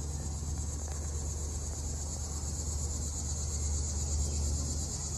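Steady high-pitched chorus of insects, crickets by the sound of it, over a low rumble.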